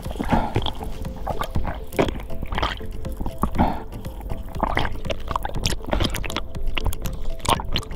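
Water sloshing and bubbling around a diver's camera underwater, with irregular clicks and splashes, turning to surface slosh as the camera breaks the surface near the end.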